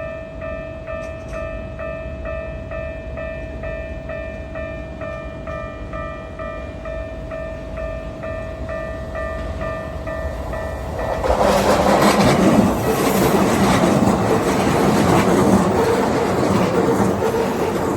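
Railway level-crossing warning bell dinging steadily, about two dings a second. About eleven seconds in, a train runs through the crossing close by, and its wheel and running noise drowns out the bell.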